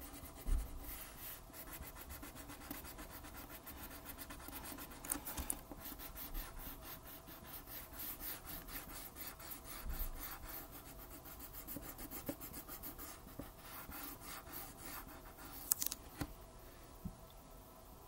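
Wax crayon being scribbled back and forth across paper, a steady run of quick scratchy strokes with a few soft knocks, stopping shortly before the end.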